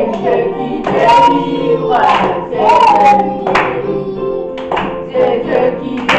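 A group of children singing a worship song together, with hand claps roughly every second or so over the singing.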